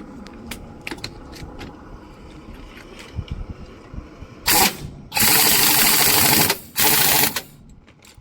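Scattered metal clicks and knocks from tyre-changing work, then three loud bursts of hissing noise about four seconds in, the middle one lasting over a second.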